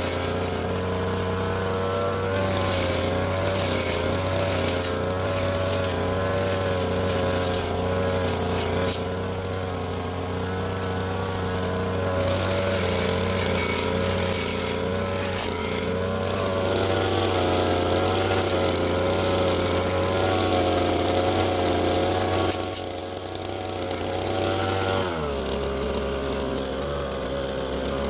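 Petrol brush cutter (grass trimmer) engine running at high revs, its pitch wavering as it cuts grass. About three-quarters of the way through the revs drop sharply and it runs on at a lower speed.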